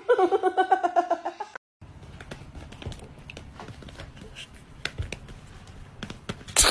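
A brief wavering cry over the first second and a half. Then soft, irregular taps and rustles as a cat on its hind legs swats and paws at a person's hand on a bed. A single loud, sudden noise comes near the end.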